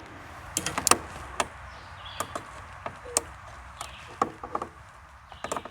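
Irregular sharp clicks and taps of a screwdriver and screws against metal as the RV refrigerator's igniter is fastened down with its grounding screw.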